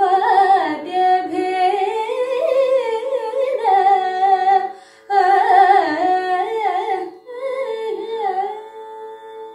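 A woman singing Carnatic classical vocal, with sliding, ornamented phrases, over the steady drone of an electronic shruti box. She pauses briefly for breath about halfway through, and her voice stops about a second before the end, leaving only the drone.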